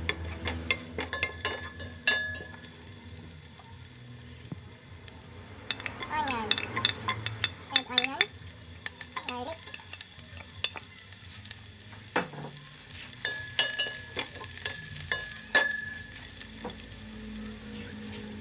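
Ginger, then onion and garlic, sautéing in hot oil in a non-stick pot, with a light sizzle. A wooden spatula stirs them, tapping and scraping against the pot.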